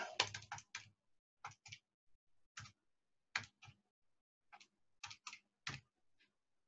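Keys of a Casio scientific calculator being pressed one by one: about a dozen quiet, separate clicks at uneven spacing, some in quick pairs.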